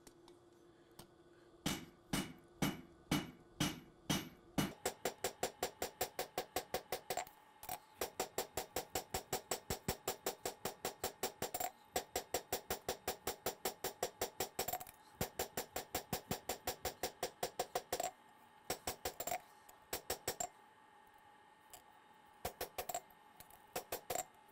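Hand hammer striking a red-hot 52100 steel Bowie knife blade on the anvil, forging in the bevels. A few slow blows come first, then a long run of rapid blows at about four a second with short breaks, then scattered blows near the end. Each strike rings with the anvil's pitched tone.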